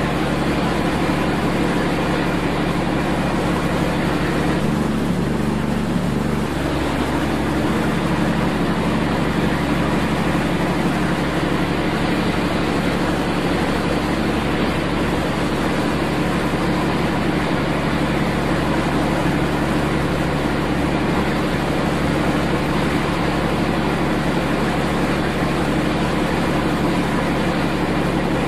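Steady drone of a training ship's engines and machinery: a deep, even hum under a constant hiss, unchanging throughout.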